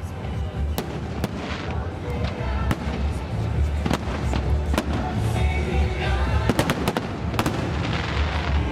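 Fireworks going off in a string of sharp, irregularly spaced bangs and cracks, with a quick cluster of them near the end, over loud music.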